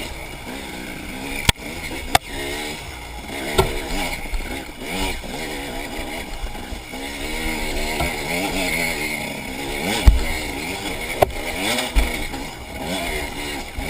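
Enduro dirt bike's engine revving up and down again and again, its pitch rising and falling with the throttle. Several sharp knocks and thumps cut through it.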